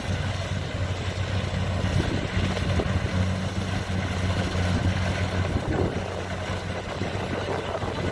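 Diesel engine of rice-harvesting machinery running steadily at an even speed, a constant low hum over a background of mechanical noise.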